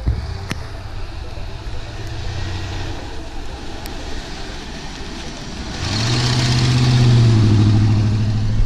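Lifted OBS Ford F-150 pickup driving through snow, its engine running low and steady, then getting much louder about six seconds in as the truck comes close and passes, with a rush of tyre noise churning the snow.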